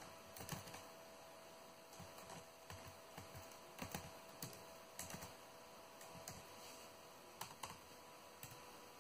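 Faint keystrokes on a computer keyboard: a dozen or so irregular, unhurried clicks as a short word of code is typed, over a faint steady hum.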